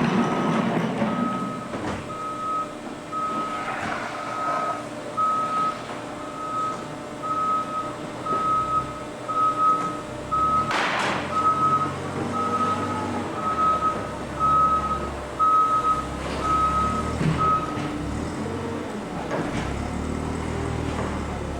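A backing vehicle's reversing alarm beeping steadily at a little more than once a second, stopping about eighteen seconds in, over a running engine. A single sharp clank comes about halfway through.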